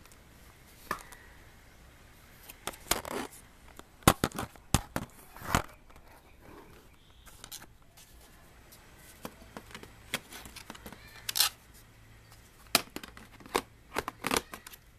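Plastic clicks, knocks and scraping as the battery is fitted back into a Compaq F700 laptop, in scattered bursts with the loudest knocks about four and five seconds in and again near the end.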